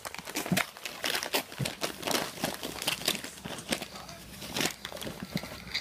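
Wrapping paper crinkling and tearing in quick, irregular crackles as a dog rips it off a gift with its mouth.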